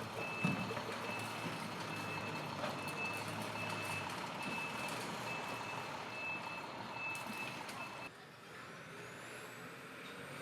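A vehicle's reversing alarm sounding steady high beeps, a little more than one a second, over a low idling engine; it cuts off about eight seconds in.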